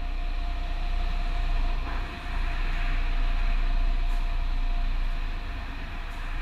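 Diesel engine of a fire brigade tanker truck running with a steady deep rumble.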